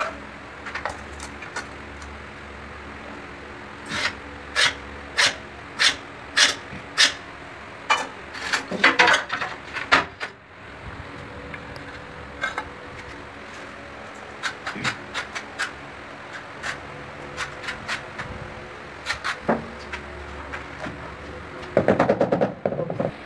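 Sharp taps and knocks on a 30 × 60 cm ceramic tile as it is handled and fitted: a run of about five evenly spaced taps, a quick flurry, then scattered taps, with a short scraping rub near the end as the tile is pressed against the wall.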